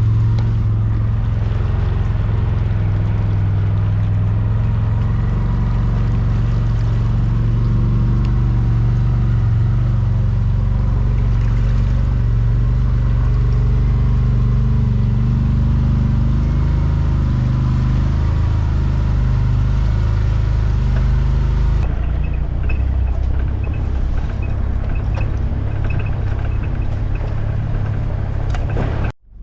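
A 4WD's engine running steadily under load as it drives slowly along a slippery clay track, a deep steady drone. The sound changes about three-quarters of the way through, with a faint regular ticking.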